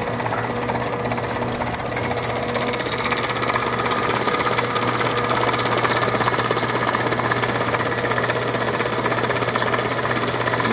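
Electric traction hoists of a suspended swing-stage platform running on their wire ropes: a steady low hum with a fast, continuous mechanical rattle.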